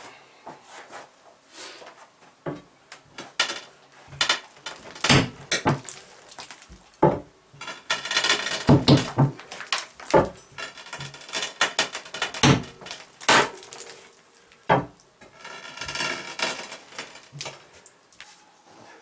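Irregular knocks and clatter of wood and metal as timber and tools are worked and shifted, with a couple of longer ringing metallic scrapes about eight seconds in and again near the end.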